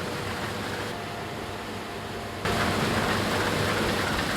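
New Holland CR9.90 combine harvester running while cutting wheat, a steady machine hum. It becomes suddenly louder about halfway through.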